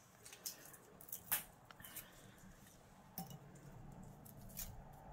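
Dry, papery garlic skin crackling as cloves are broken off a bulb by hand: a few sharp, crisp clicks and rustles, the loudest about a second and a half in.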